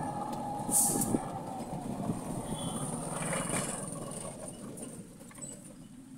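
Road noise heard from inside a small vehicle moving along a wet street: tyre hiss and cabin rattle, dying down over the last couple of seconds.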